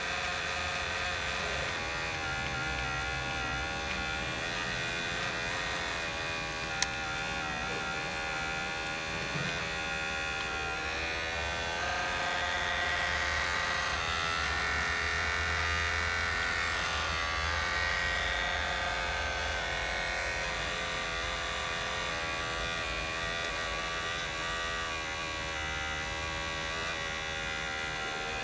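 Small electric motors of a 1:14 Huina RC excavator whining and buzzing as it works its long boom, arm and bucket, the pitch shifting as the motors change speed and load. A single sharp click about seven seconds in.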